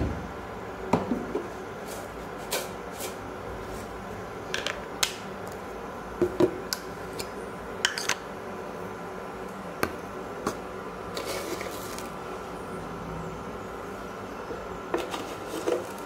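Portable induction cooktop humming steadily with a stainless steel saucepan heating on it. A dozen or so sharp clicks and ticks are scattered through the hum, with a short rustle a little past the middle.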